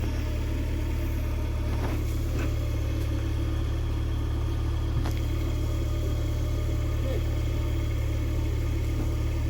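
Car engine running steadily, a constant low hum heard from inside the car, with a few faint clicks.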